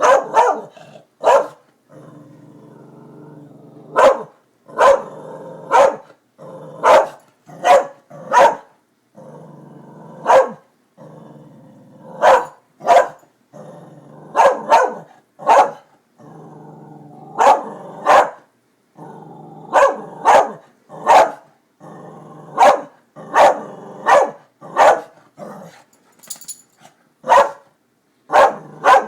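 A dog barking repeatedly at construction workers in short, sharp barks, often two in quick succession, with a low growl running between the barks.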